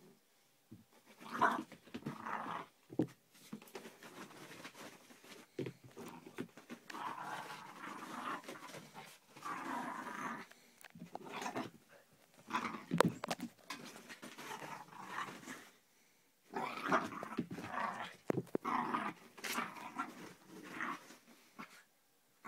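A 16-week-old whippet–Jack Russell puppy play-growling as it worries a rope toy, in bursts of a second or two with short pauses between them. A few sharp knocks stand out among the growls.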